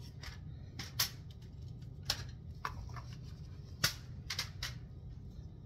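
Scattered sharp clicks and taps of a thin plastic food container being handled in gloved hands while halved grape tomatoes are picked out onto chopped vegetables, over a steady low hum.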